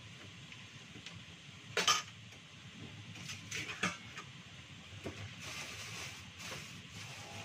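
Kitchen clatter of dishes and utensils knocked on a tiled counter: one sharp clatter about two seconds in, a few quicker clinks a little later, then rustling of plastic bags, over a steady low hum.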